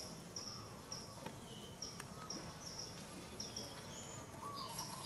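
Outdoor tree-cover ambience: a short, high chirping call repeated over and over, a few times a second, over a steady background hiss.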